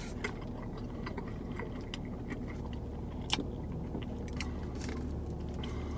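A person chewing a mouthful of grilled chicken sandwich, with many small wet mouth clicks and one sharper click a little past halfway, over a low steady hum.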